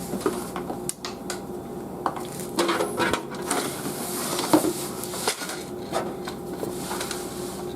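Irregular clicks, taps and light clattering of computer parts being handled and turned around on a work surface.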